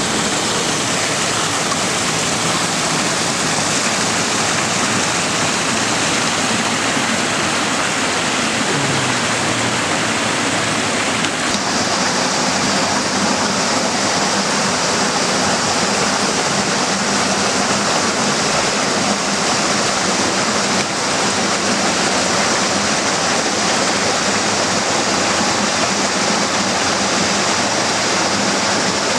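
Shallow river water rushing steadily over rocks and boulders, a loud, even rush. Its tone shifts slightly about a dozen seconds in.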